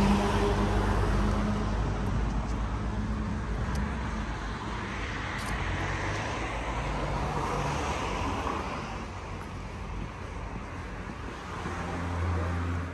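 A motor vehicle running, with a steady low engine hum under road noise. It fades somewhat after about ten seconds, swells briefly near the end, then cuts off suddenly.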